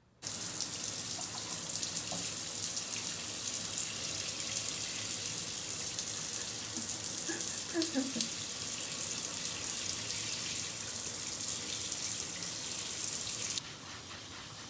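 Shower water running into a bathtub, a steady hiss that starts suddenly and drops to a lower level about a second before the end.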